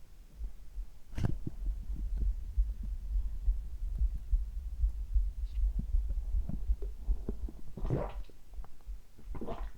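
A person's heartbeat and stomach sounds heard together: a steady low pulsing heartbeat throughout, with short gurgling stomach rumbles about a second in and twice near the end.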